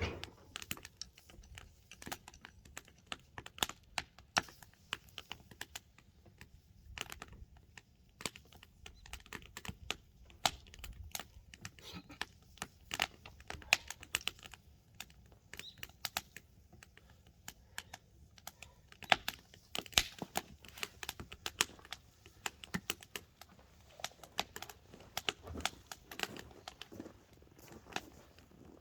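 Burning log firewood crackling, with irregular sharp pops and snaps.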